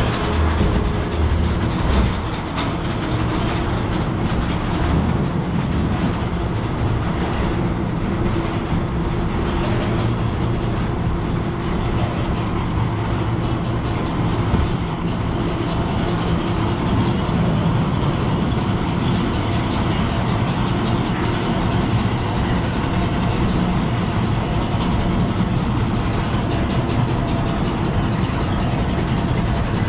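Soquet looping roller coaster train being hauled up its chain lift hill: a steady rattling clatter of the lift chain and track, with a low steady hum underneath.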